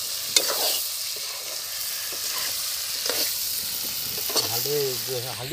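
Potato chunks frying with a steady sizzle in a black iron kadai, stirred with a metal spatula that clicks and scrapes against the pan now and then.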